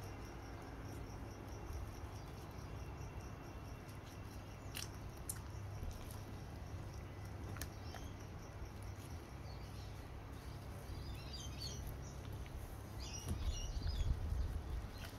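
Crickets chirping in an even pulsing rhythm over a low steady rumble, with a few sharp clicks and, later, short high twittering calls.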